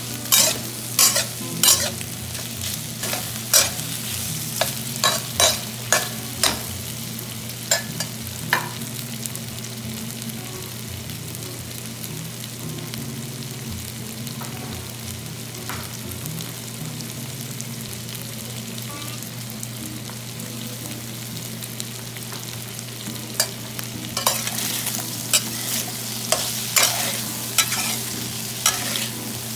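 Shrimp and diced carrots sizzling in oil in a stainless steel pan while a metal spoon stirs them, clacking and scraping against the pan. Quick strokes come over the first several seconds, steady sizzling fills the middle, and the stirring picks up again near the end, over a steady low hum.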